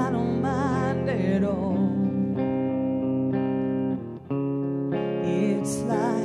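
Music: a song with guitar and a voice holding long notes with vibrato, with a short break about four seconds in.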